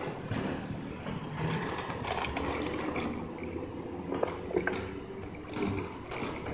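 Bicycle rolling over paving and rattling, with a couple of sharp knocks about four seconds in, over the steady noise of city street traffic.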